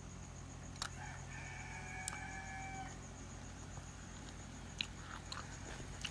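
A rooster crowing once, faintly, one drawn-out call of about two seconds, with a few light clicks of chopsticks against dishes.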